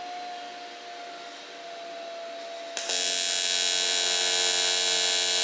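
AC TIG welding arc on an aluminium pipe, set to 170 amps at a 90 hertz AC frequency, striking suddenly and buzzing steadily. The buzz gets louder about three seconds in.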